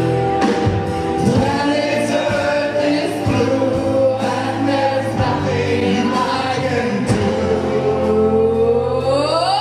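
Live glam-rock band with a lead singer and backing singers holding sung notes together over drums and bass. Near the end a note slides upward in pitch.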